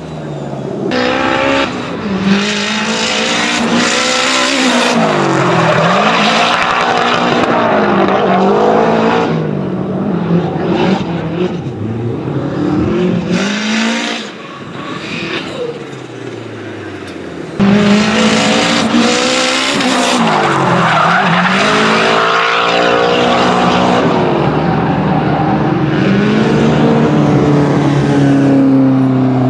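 Drift car's engine revving hard, its pitch swinging up and down as the throttle is worked through a slide, with tyres squealing and skidding. The sound dips briefly past the middle, then jumps back suddenly to full loudness.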